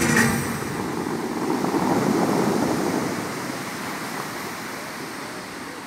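Spray from the Dubai Fountain's water jets falling back into the lake: a steady rushing splash that swells about two seconds in, then slowly fades. The show music stops at the very start.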